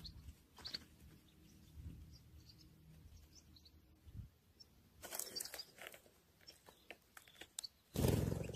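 Small birds chirping faintly now and then, with soft rustling and crunching of movement over rough ground. A loud burst of rubbing noise from handling the microphone comes near the end.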